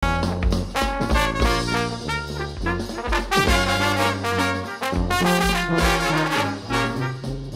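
Brass-led instrumental background music with a steady beat.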